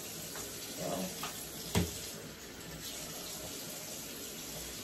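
Water running from a bathroom sink tap in a steady stream, with one sharp knock a little under two seconds in.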